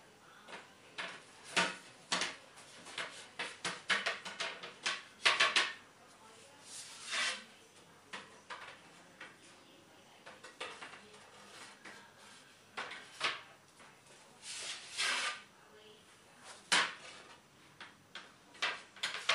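Wooden shelf boards being handled and fitted into a pop-up counter's metal tube frame: irregular knocks and clatters, with a few short scrapes as boards hit and slide against the frame and each other.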